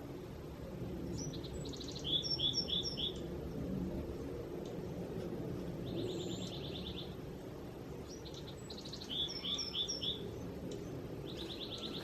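A songbird singing a repeated phrase of a few high notes followed by four quick falling notes, delivered twice. Each phrase is followed a few seconds later by a short buzzy trill, over a steady low background rumble.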